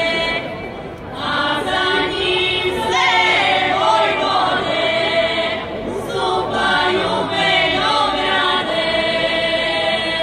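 Folk vocal group in traditional costume singing a traditional song a cappella, several voices holding long notes together in phrases with brief pauses between them.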